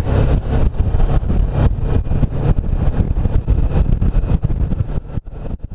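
Suzuki V-Strom motorcycle riding at road speed, heard as a loud, gusty wind rush buffeting the on-board microphone over the vehicle noise. The sound fades out near the end.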